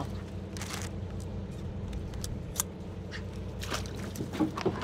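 A boat's engine runs steadily under a few sharp clicks and knocks of gear and lobster being handled on deck. The loudest knocks come near the end.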